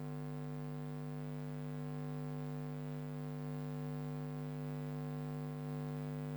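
Steady electrical mains hum with a buzzy stack of overtones, unchanging throughout; no other sound stands out.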